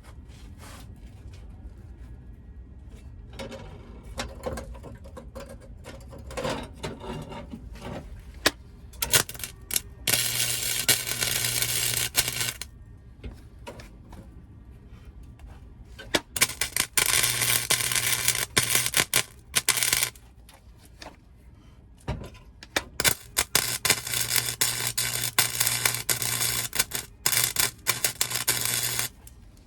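Welding arc crackling on sheet-steel car floor pans: a couple of quick tacks, then three runs of a few seconds each, with a low hum under each run.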